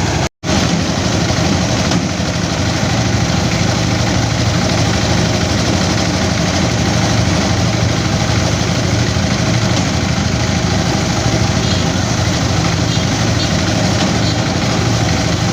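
Engine-driven rice threshing machine running steadily, a dense mechanical din with a low engine hum underneath. The sound cuts out briefly, for a fraction of a second, just after the start.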